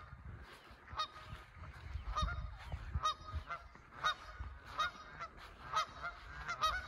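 Geese honking repeatedly, short calls overlapping several times a second after a sparser first second: the flock stirred up by people walking toward it.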